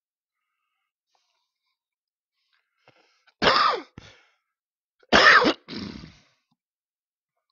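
A man coughing twice, about a second and a half apart, each cough followed by a shorter, weaker one.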